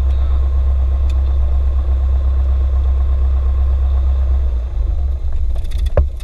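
Cessna 172's piston engine idling, heard from inside the cockpit as a steady low hum. About four and a half seconds in the running turns rough and uneven as the engine is being shut down, with a single sharp knock near the end.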